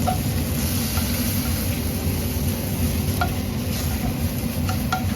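Shimeji mushrooms sizzling in butter in a frying pan as they are sautéed, with a few light clicks of a utensil against the pan.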